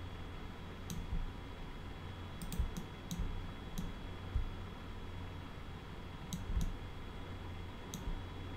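Scattered sharp clicks of a computer mouse and keyboard, about nine at uneven intervals, over a steady low hum.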